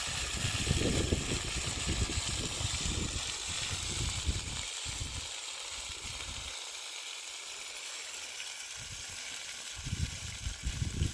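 Fish frying in oil on a flat pan over an open wood fire, a steady sizzling hiss. Gusty low rumbling from wind on the microphone fills the first few seconds, fades in the middle and comes back near the end.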